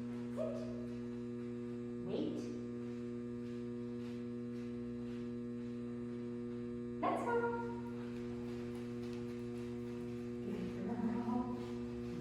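Steady electrical mains hum, with a few brief louder sounds over it, the loudest about seven seconds in and a short cluster near the end.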